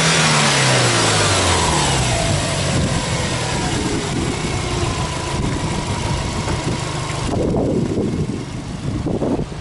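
Subaru Impreza WRX STI's turbocharged flat-four engine, heard at the open engine bay, its revs falling away from a free-rev over the first two seconds and settling to a steady idle. Wind buffets the microphone in the last two seconds.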